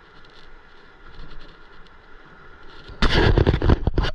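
Hand rubbing and knocking against the camera and its microphone: a loud, crackling scrape of many quick strokes lasting just over a second, starting about three seconds in and cutting off suddenly, over a faint steady background.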